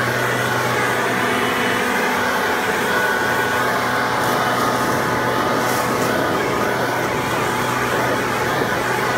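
RedMax backpack leaf blower's two-stroke engine running steadily at a constant pitch, with air rushing from the blower tube.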